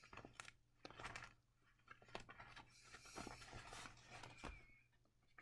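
Near silence: room tone with a low hum, a few faint clicks and a soft rustle.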